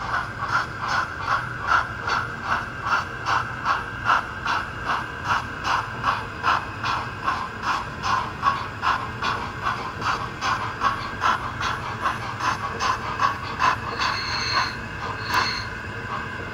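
Roco model of the BR 10 002 steam locomotive chuffing at quarter speed, with an even beat of about four chuffs a second. The chuffs slacken and fade out about fourteen seconds in, followed by a couple of brief higher tones.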